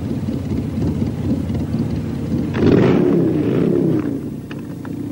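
Motorcycle engines running with a low rumble, then revved hard about two and a half seconds in before easing back.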